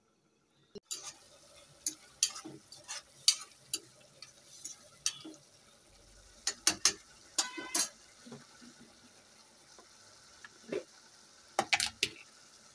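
A spoon stirring a kadai of simmering prawn curry, with irregular clinks and scrapes against the pan over a steady faint sizzle of the curry.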